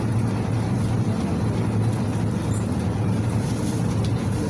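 Cabin sound of a PAZ 4234-04 bus on the move: its YaMZ-53423 four-cylinder diesel engine runs steadily, with a low hum under an even road and body rumble.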